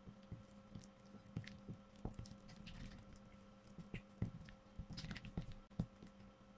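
Spatula mashing and smoothing soft cream cheese in a glass bowl: faint, irregular squishing with light taps of the spatula against the glass.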